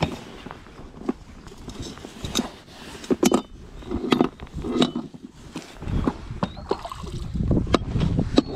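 Scattered knocks, clicks and rustles of someone moving about in a plastic sit-on kayak, with a low rumble in the last few seconds.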